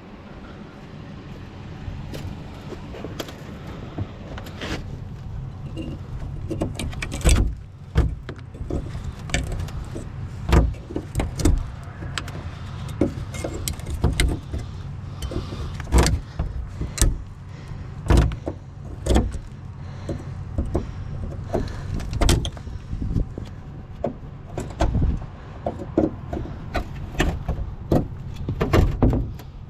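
Metal scrap pieces clinking and knocking irregularly as they are handled and taken apart, over a steady low hum.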